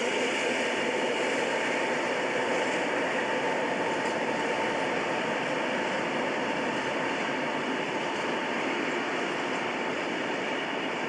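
Freight train of tank wagons rolling past on the rails: a steady noise of wheels on track that slowly grows fainter as the train draws away.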